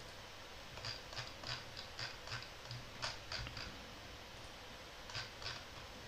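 Faint computer mouse clicks: a run of about ten quick clicks, then a pause and two more near the end.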